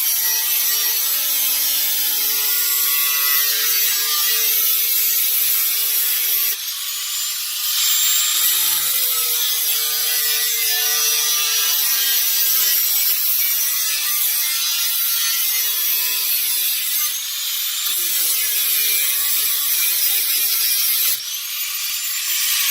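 Power saw cutting through the car's sheet-metal floor pan, a steady motor whine with a harsh metallic hiss. It stops and restarts about two seconds later, pauses briefly near the end, then stops.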